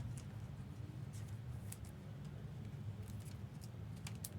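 Faint light clicks and rustles of trading cards being handled, over a steady low hum.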